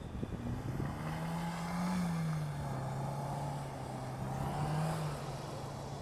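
A BMW's engine held at high revs as the car drifts on snow, its pitch climbing about a second in, dipping, and swelling again near the end.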